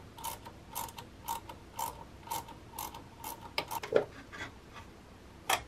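Socket ratchet wrench undoing a bolt, clicking in short strokes about twice a second. About four seconds in come a few knocks as the metal intake pipe with its air filter is pulled loose, and there is a sharp click near the end.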